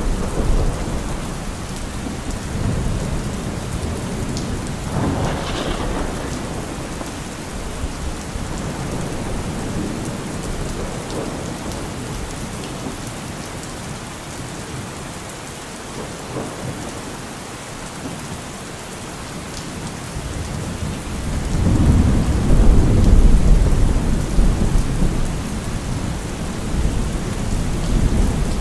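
Heavy rain falling steadily, with thunder rumbling. There is a rumble near the start and another about five seconds in, and a longer, louder rolling rumble about three-quarters of the way through.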